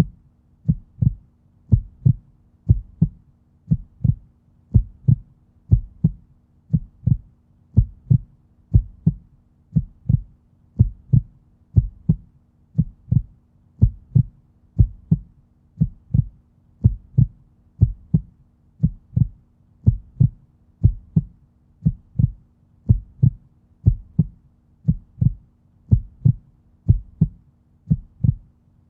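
Human heartbeat, a steady lub-dub double thump about once a second, deep and low, over a faint steady hum.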